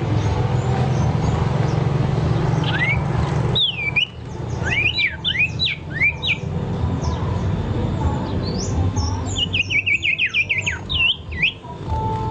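A low steady noise that cuts off sharply about three and a half seconds in, then a small bird calling in short, sharp chirps that sweep up and down in pitch, with a quick run of chirps near the end.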